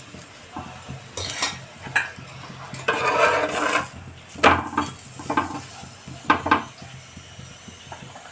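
A utensil scraping and knocking on a hot tawa while a paratha is roasted and turned, with a faint sizzle underneath. There is a string of short scrapes and knocks, and a longer, louder scrape about three seconds in.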